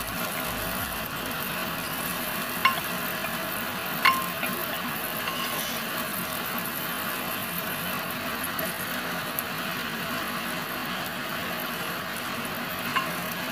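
Butter sizzling as it melts in a hot pot, stirred with a wooden spatula, with a sharp knock of the spatula against the pot about two and a half seconds in, another at four seconds and another near the end.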